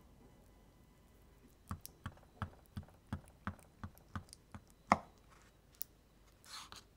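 Kitchen knife slicing down through a slab of honeycomb on a wooden cutting board: a run of crisp crackling clicks, about three a second, as the wax cells give way, the loudest one near the end of the run, then a short wetter crackle.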